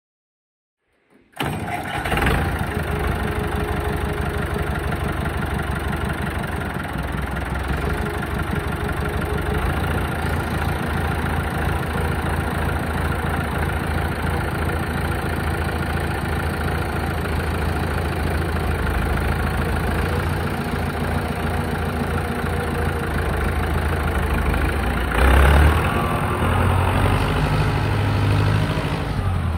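Massey Ferguson 175 tractor engine running steadily at idle, cutting in suddenly after about a second of silence. About 25 seconds in it revs up and its note changes as the tractor pulls away.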